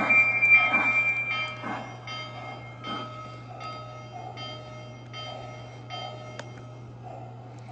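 Lionel model train with a C&O Berkshire steam locomotive running on the layout: evenly repeating pulses about three times a second over a steady low hum, with a loud high steady tone for about the first second and a half.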